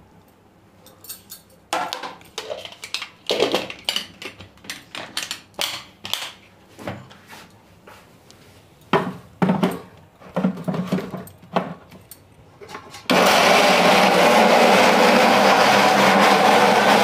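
Clicks and knocks as the steel jar of an electric mixer grinder is handled and fitted. About thirteen seconds in, the mixer grinder starts and runs loudly and steadily, grinding garlic, ginger, green chilli, onion and tomato into a paste.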